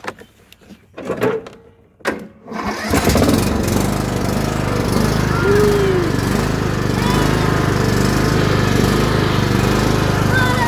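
A Cub Cadet riding mower's engine is started by key about three seconds in, catches at once, and then runs steadily.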